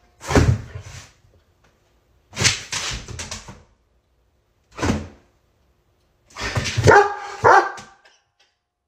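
Doberman barking at a stuffed toy dog it takes for a strange dog: four loud bursts of barks with short silences between, the last burst the longest.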